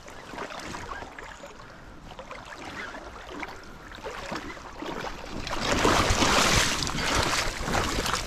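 Water splashing and sloshing, building to a loud burst of splashing over the last few seconds, as a big hen salmon is brought in at the river's edge.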